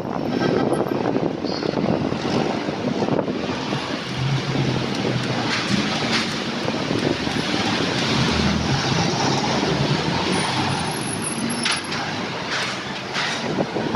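City traffic heard from a moving bicycle, with road and wind noise throughout; a motor vehicle's engine drones for several seconds in the middle, and a few brief high sharp sounds come near the end.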